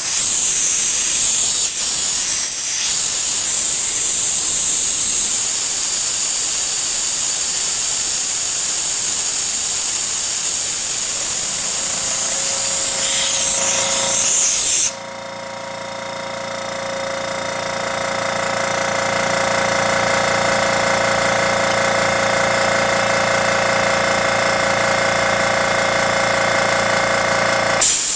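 Compressed air hissing out of a Soilmoisture 0505 compressor as the pressure is bled down through a cloth held at the outlet. About halfway through the hiss cuts off suddenly and the compressor's motor and pump start, running steadily and growing louder as they build pressure back up. Near the end there is a short burst of hiss as the compressor shuts off at its 18 bar cut-out.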